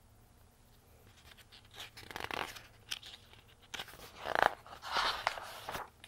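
Paper rustling and crackling as a large picture book is handled and its pages turned close to the microphone, starting about a second in and loudest a little past the middle.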